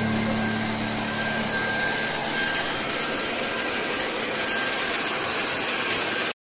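Handheld hair dryer blowing steadily: a rush of air with a thin, high motor whine, drying a wet puppy's coat. It cuts off suddenly near the end.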